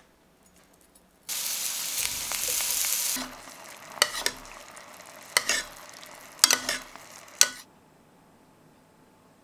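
Sliced daikon sizzling loudly in a frying pan for about two seconds. Then a quieter bubbling of sauce in the pan, broken by several sharp clinks of a metal ladle against the pan.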